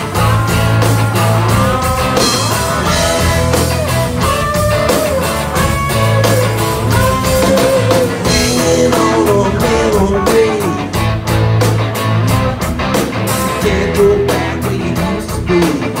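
Live rock band playing: electric guitars, bass guitar and a drum kit keeping a steady beat, with a lead line sliding between notes in the second half.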